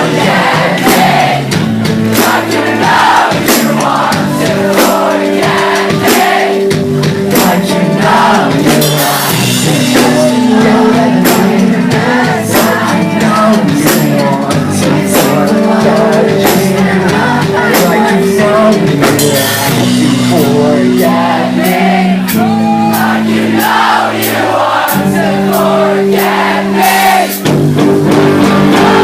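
Pop-punk band playing live: sung vocals over sustained guitar chords and a steady drum beat.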